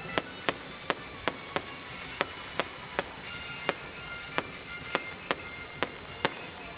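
A series of sharp, short cracks or knocks, about two a second and unevenly spaced, over faint music.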